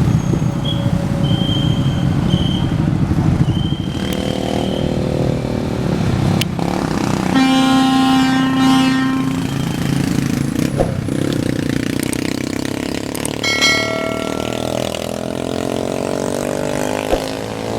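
Bus engines running with horn blasts: a few short high beeps in the first few seconds, one long steady horn note of about two seconds about halfway through, and a shorter, higher horn toot a few seconds later. An engine note shifts in pitch near the end as a vehicle moves off.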